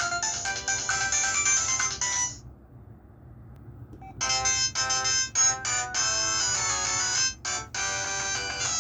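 Electronic ringtone melodies from a Huawei ETS688 phone. One tune stops about two seconds in, and after a short pause with only faint hiss, another ringtone starts about four seconds in.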